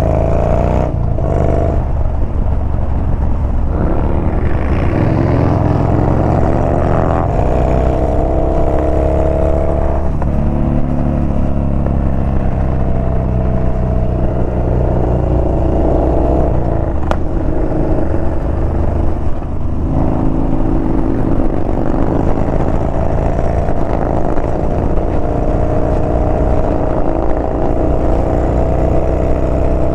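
Yamaha Bolt's air-cooled V-twin engine running under way, its pitch climbing as it accelerates through the first several seconds, easing around ten seconds in, then holding fairly steady, over a constant low rush of wind and road noise.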